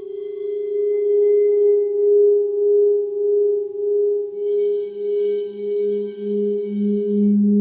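Crystal alchemy singing bowls sounding in sustained tones. One bowl's steady tone wavers in loudness under twice a second, and a second, lower-pitched bowl joins about halfway through.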